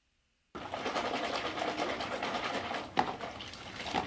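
Audio track of a three-second home camera clip: a dense, steady noise starts about half a second in, with a sharp knock near the end, and cuts off suddenly when the clip ends.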